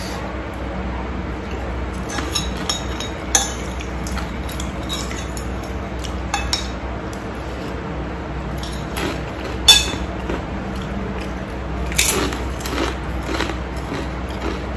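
Metal spoon and fork clinking and scraping against a ceramic plate while eating. A scattering of sharp clinks, the loudest about two-thirds of the way through, sits over a steady low hum.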